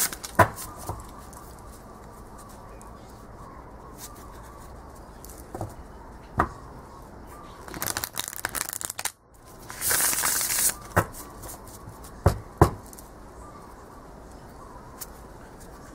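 Spirit Keeper's Tarot cards being riffle-shuffled by hand: two riffles, each about a second long, about eight and ten seconds in, with a few sharp taps of the deck between them.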